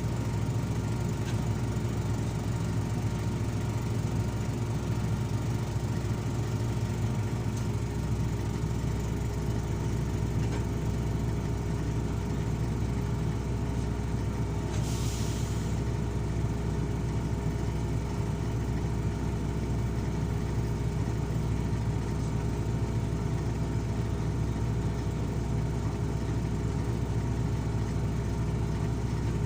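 Heavy diesel engine running steadily, with a short burst of hiss about halfway through.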